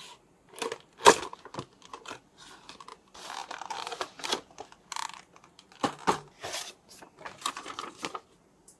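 Toy packaging being handled and opened: irregular crinkling, tearing rustles and sharp clicks, stopping just before the end.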